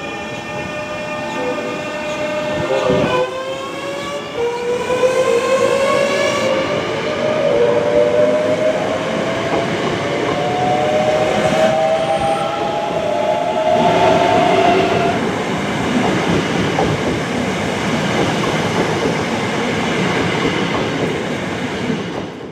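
Class 365 electric multiple unit pulling away: its traction whine, several tones together, rises steadily in pitch as it accelerates. The carriages then rumble past with wheel noise on the rails.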